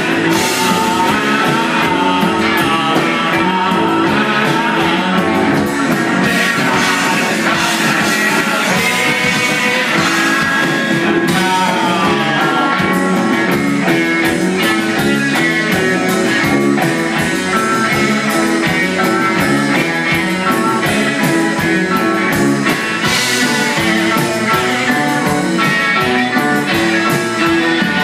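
Rock band playing live, with guitar to the fore over a steady beat.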